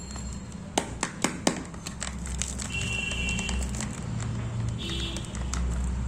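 Background music, with a quick run of four sharp clicks about a second in from Kinder Joy egg capsules or toys being handled.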